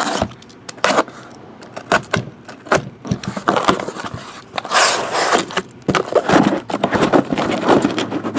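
Cardboard shipping case being slit open along its tape with a utility knife, the flaps pulled back and the boxes of trading cards inside slid out. It makes a string of cardboard scrapes and knocks, with one longer scrape about halfway through.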